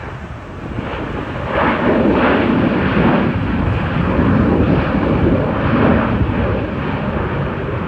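Jet aircraft passing close by, its engine roar building over the first two seconds, staying loud and easing slightly near the end.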